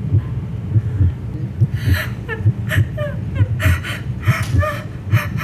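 A woman sobbing and whimpering in short, gasping cries, starting about two seconds in. Under her, a low, regular thumping like a heartbeat runs throughout.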